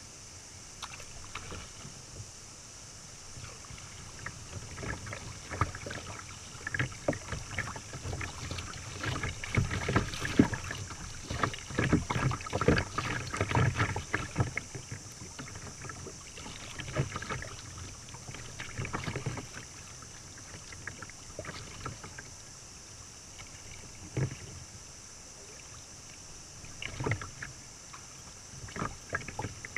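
Water splashing and slapping against a kayak's hull and paddle, picked up close by a bow-mounted camera, in irregular bursts that grow busiest around the middle as the kayak runs through choppy water of a small rapid, then ease to a few single splashes. A steady high hiss lies underneath.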